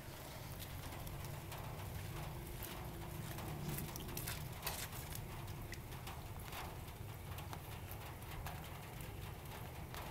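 Kittens eating scraps: irregular small clicks and ticks of chewing over a steady low rumble.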